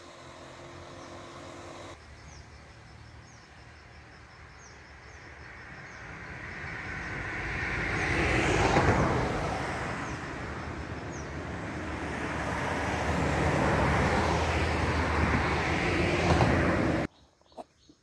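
Road traffic: a vehicle passes close by, its tyre and engine noise swelling and peaking about nine seconds in, then fading, before a second vehicle passes. The sound cuts off abruptly about a second before the end.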